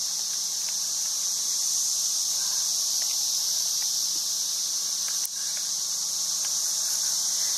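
Steady, high-pitched insect chorus droning without a break, with one brief click about five seconds in.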